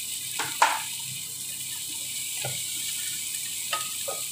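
Chopped onion and garlic sizzling in hot oil in a wok, a steady hiss, with a wooden spatula knocking against the wok a few times, the sharpest knock about half a second in.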